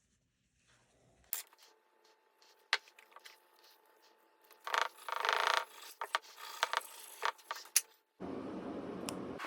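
Light taps, clicks and scrapes of small hard objects being handled, with a longer, louder scrape about five seconds in. A steady hiss starts near the end.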